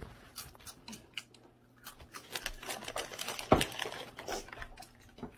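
Plastic snack bag crinkling and rustling in irregular bursts as it is handled on a table, with one loud thump about three and a half seconds in.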